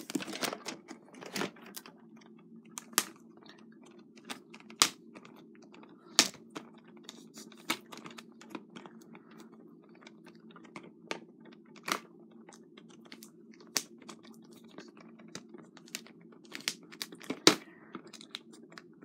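Hands unsealing a shrink-wrapped VHS tape: scattered light clicks and ticks, a second or two apart, as fingernails pick at the plastic wrap and case.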